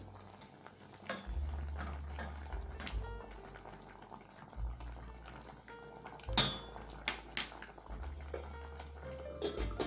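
Background music with a repeating bass line, over a spoon clinking against a stainless steel pot of boiling potatoes, with two sharp knocks a second apart about six seconds in.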